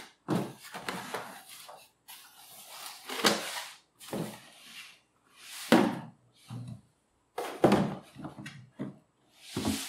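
A cardboard shipping box being opened and unpacked: irregular rustling and scraping of the cardboard flaps and packing, with several sharp knocks as a clear plastic storage container is handled and lifted out.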